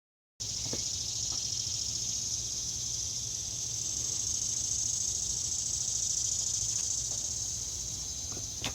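Steady high-pitched chorus of insects, with a low hum underneath; it begins abruptly just after the start.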